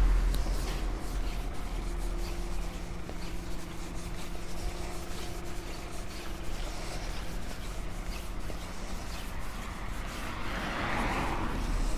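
Street traffic: a passing car's tyre and engine noise fades out at the start, a low steady engine hum runs through the middle, and another car passes near the end.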